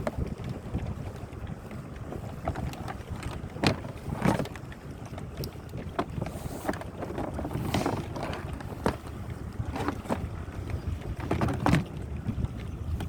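Irregular knocks and clicks of the folding canoe's plastic hull and fittings being handled during disassembly, with a steady low rumble of wind on the microphone.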